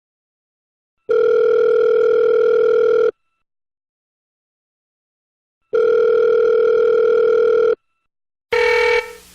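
Telephone ringback tone, the sign that the called phone is ringing: a steady low tone about two seconds long, sounding twice with a pause of about two and a half seconds between. Near the end a different, buzzier tone begins.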